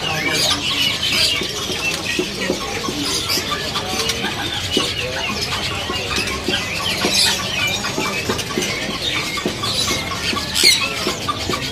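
Many caged songbirds chirping and calling at once, a dense overlapping chorus of short high notes and quick whistled glides, with a few sharper notes standing out now and then.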